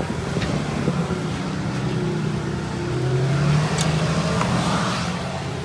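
Car engine and road noise heard from inside the cabin, with the engine note rising slightly about midway as the car pulls ahead.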